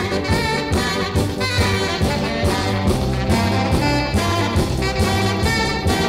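Swing-style jazz music with brass instruments over a steady beat.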